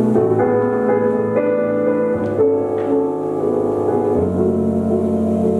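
Slow instrumental music with held chords that change every second or two.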